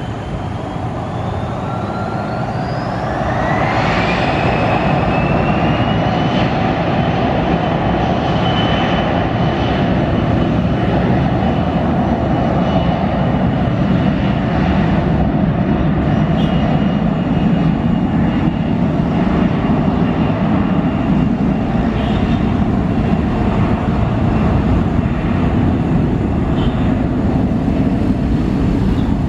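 Bombardier CRJ1000 jet's twin rear-mounted turbofan engines spooling up to takeoff thrust: a whine rises in pitch over the first few seconds as the level climbs, then settles into a steady loud roar with a held high whine as the jet rolls down the runway.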